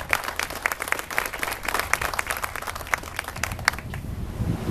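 A small crowd applauding, a dense patter of hand claps that thins out and stops about four seconds in.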